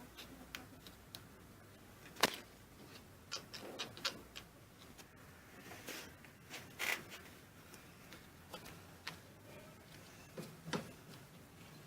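Faint, irregular clicks and knocks of tools and small metal parts being handled during a car starter repair, with a sharper knock about two seconds in.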